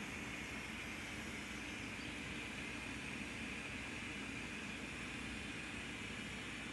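Steady background hum with hiss, unchanging and without distinct events.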